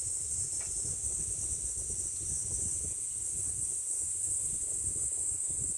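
Steady, unbroken high-pitched insect chorus, with a low irregular rumble underneath.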